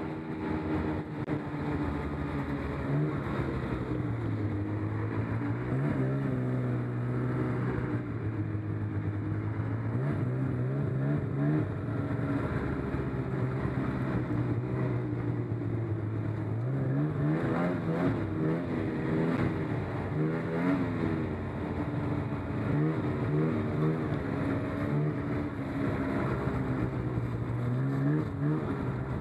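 Snowmobile engine running under way, its note rising and falling with the throttle several times, with track and snow noise underneath.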